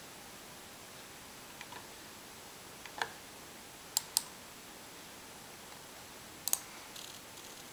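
Computer mouse buttons clicking: a few single sharp clicks and two quick double-clicks, about four and six and a half seconds in, over a faint steady hiss.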